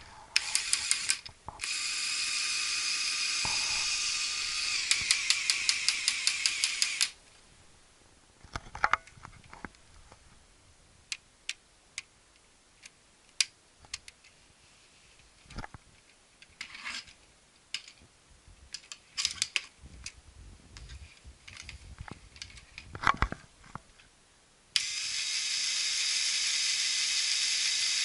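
Plastic Lego Technic gear train of a 42025 cargo plane model whirring and clattering with fast clicks as the model is worked, in two long stretches: about 2 to 7 seconds in and again from about 25 seconds in. Between them come scattered light clicks of plastic parts being handled.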